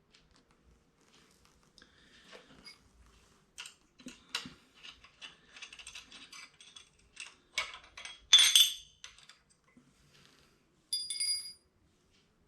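Small metal bolts and tools clinking and rattling as they are handled, with a louder clatter about 8.5 seconds in and a short ringing metal clink about 11 seconds in.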